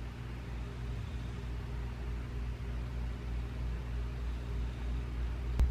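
Steady low hum with a faint even hiss: indoor room noise, with one sharp click just before the end.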